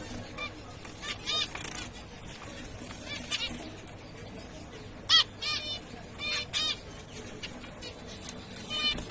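Zebra finches calling: short calls, several in irregular succession, the loudest about five seconds in.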